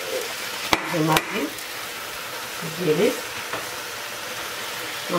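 Meat frying with onions in a saucepan, a steady sizzle as it is stirred, with two sharp knocks of the stirring utensil against the pot about a second in.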